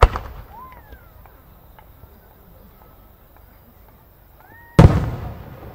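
Two loud booms from large aerial firework shell bursts, one at the start and one near the end, each echoing away over a second or so. Between them it is quiet, with a few faint gliding tones.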